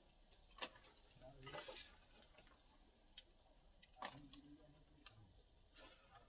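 Faint sizzling of food frying in a small pan over a wood fire, with a few light clicks and taps as pieces are laid in the pan.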